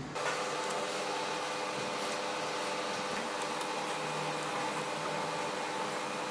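Steady machine hum with a few steady tones over an even noise, with a few faint clicks.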